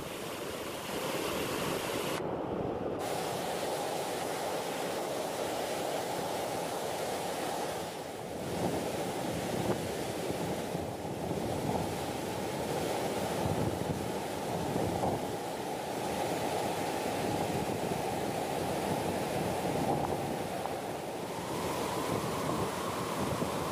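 Heavy overflow of water pouring over a reservoir spillway: a steady, deep rush of falling water.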